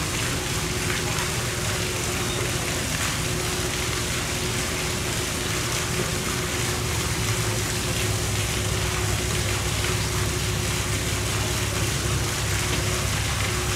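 Steady rushing water with a low machine hum and a constant tone underneath, like an enclosure pool's pump and water inflow running.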